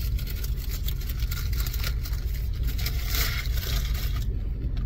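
Steady low rumble of a parked car's engine idling, heard inside the cabin, with paper sandwich wrapper crinkling and chewing over it; the crinkle is loudest about three seconds in.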